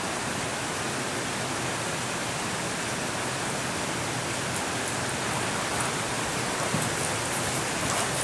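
Steady, even hiss of background noise. Near the end come a few soft thuds as the horse starts moving on the arena's sand.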